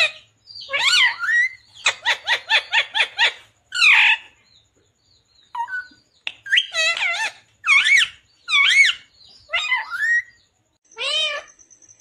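Rose-ringed parakeet calling in a string of sharp, pitched chirps and squawks, including a quick run of about six notes, with a short pause about halfway through.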